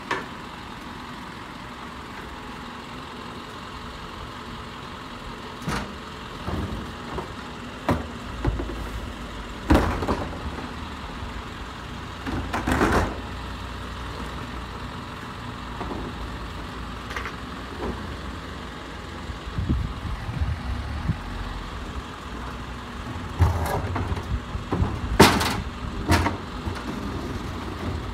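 Garbage truck running steadily, with scattered clanks and knocks every few seconds.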